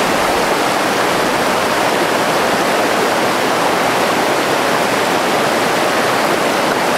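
Rushing whitewater of a shallow, rocky river rapid, a loud steady roar of water.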